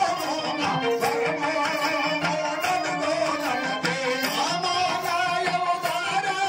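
Pandari bhajana devotional music: a keyboard melody over dolu and dappu drums keeping a steady, quick rhythm.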